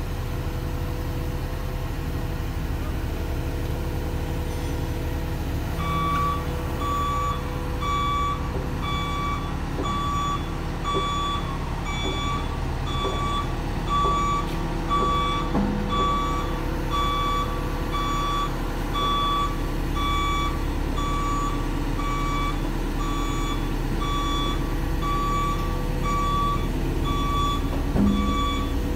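A heavy machine's back-up alarm beeping evenly, about one and a half beeps a second, starting about six seconds in, over the steady low rumble of the diesel engine of the machine holding the excavator cab aloft.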